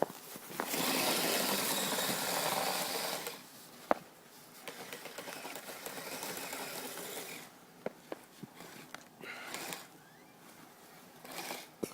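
Kyosho Blizzard SR radio-controlled tracked snow vehicle's electric motor and gearbox running in several bursts, the longest and loudest about a second in, with a sharp click near four seconds.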